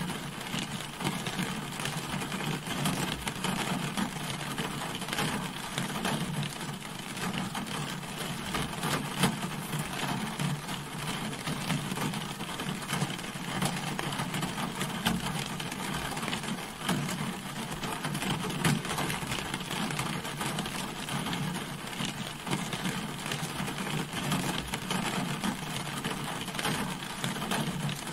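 Steady rain falling on a car, a dense even wash of drop hits with a few louder single drops now and then.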